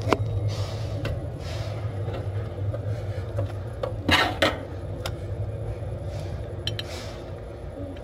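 Metal parts and tools clinking as they are handled, with one louder scraping rasp about four seconds in, over a steady low hum.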